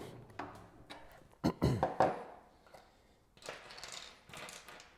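A few sharp knocks and clicks of a screwdriver and bolt hardware against a metal kayak adapter plate as a bolt is driven in, loudest about a second and a half in, followed by soft rustling.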